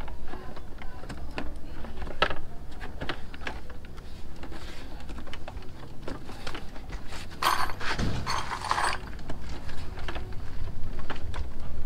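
Plastic fairing panels of a Honda CBR150R being handled and pressed into place, with scattered sharp clicks and knocks of plastic on plastic and a longer scraping rustle about seven and a half seconds in.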